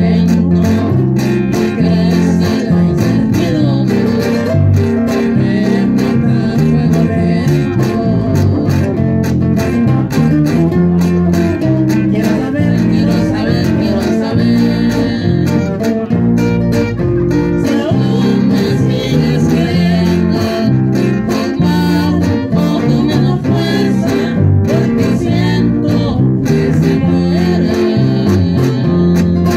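Live trio of two acoustic guitars and an electric bass through an amplifier, playing a song with a steady, repeating bass line.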